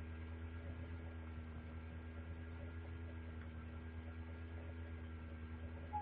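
Steady electrical mains hum with a faint hiss, several steady tones layered above the low drone.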